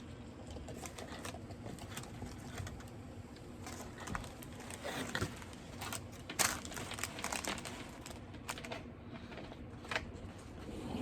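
Crinkling and rustling of food packaging, with scattered small clicks and taps, busiest around the middle.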